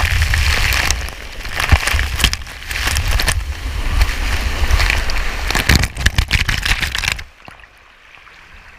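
Rushing water and wind buffeting a camera riding down a waterslide, with water spraying and crackling against the microphone. The noise cuts off suddenly about seven seconds in.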